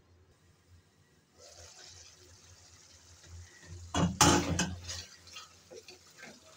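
Faint hiss of liver curry simmering in a pan. About four seconds in, a spatula clatters and scrapes against the pan as the thick curry is stirred, with a few softer knocks after it.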